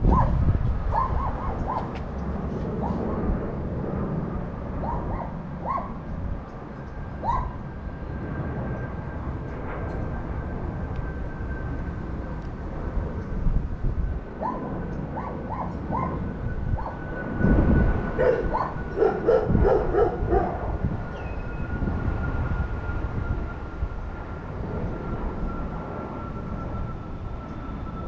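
A dog barking in short runs of a few barks, busiest about two-thirds of the way through, over a steady low outdoor rumble. A faint thin whine slowly drops in pitch through the second half.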